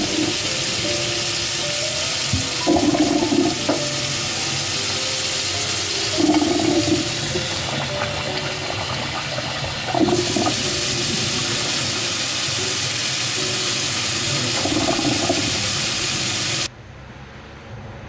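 Kitchen tap running a steady stream of cold water into a stainless steel sink, shut off abruptly near the end.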